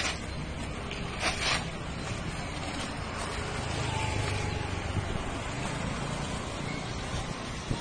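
Outdoor traffic noise with a motor vehicle passing, swelling and easing off around the middle. A brief rustle of newspapers being handled comes just before the start and again about a second in.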